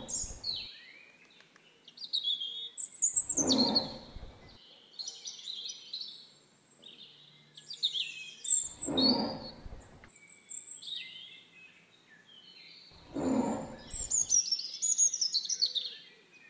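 Small birds chirping and singing throughout, with four deep, rough tiger growls of a little over a second each, spaced a few seconds apart.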